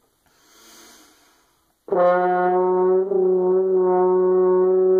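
A deep breath drawn in, then a French horn sounding one sustained low note from about two seconds in, held steadily. The player calls the air behind it terrible.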